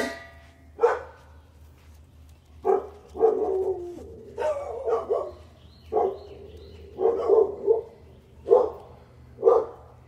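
A dog barking repeatedly: single barks and short runs of two or three, coming every second or so.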